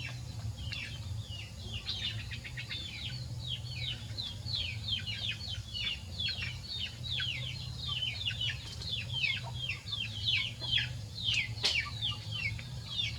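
Small birds chirping: a dense run of quick, high, falling chirps, several a second, over a steady low hum. A single sharp click comes near the end.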